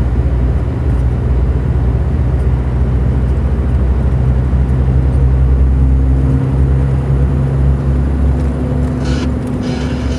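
Truck engine droning steadily, heard from inside the cab on an uphill climb. A higher hiss of rain and wet road joins near the end.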